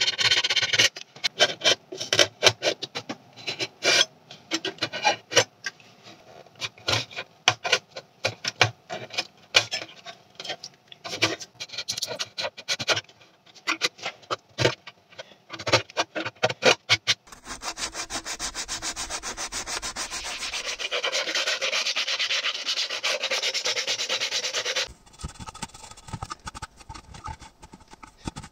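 A utility-knife blade scraping old dried gasket adhesive off the edge of a loudspeaker horn, in short, irregular strokes. About 17 seconds in it turns into a louder, steady rasping that lasts about seven seconds and then drops away to quieter scraping.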